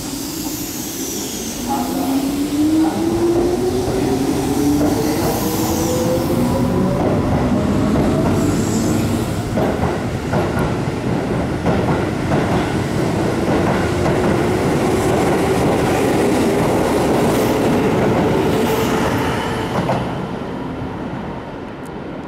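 Keihan 6000-series electric train pulling out and accelerating past: its traction motors whine, rising in pitch twice, over rumbling wheels and clacks on the rail joints. The noise fades near the end as the last car leaves.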